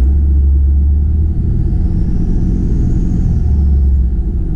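5.9 Cummins 24-valve turbo diesel running, heard from inside the cab as a heavy low rumble. Its HE351CW turbo whistles faintly, the whistle rising about a second and a half in and falling away near the end. The whistle is made audible by the S&B intake with its silencer ring deleted.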